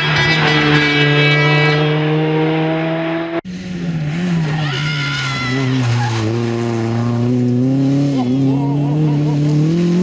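Rally car engines at full effort. First a Ford Sierra RS Cosworth holds high revs, its pitch slowly rising as it goes through a bend. After an abrupt cut about three and a half seconds in, a Renault Clio rally car's engine works at lower, wavering revs, with tyre squeal as it slides through a junction.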